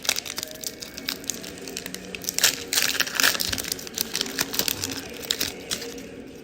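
Pokémon booster pack's foil wrapper crinkling as it is handled and torn open, a dense run of sharp crackles that is loudest about halfway through.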